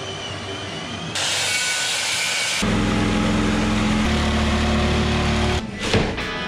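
Power-tool sounds spliced together, each cutting abruptly to the next about every second and a half: a high hissing grind, then a low steady motor hum, then a few sharp knocks near the end.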